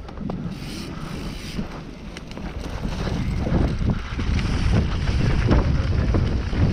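Wind buffeting an action camera's microphone and mountain bike tyres rumbling over grass as the bike rolls downhill. It grows louder as the bike gathers speed, with scattered knocks from the bumpy ground.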